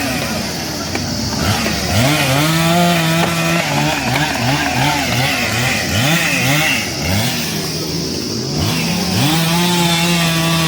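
Two-stroke chainsaw engine being throttled up and down again and again, with longer stretches held at high revs.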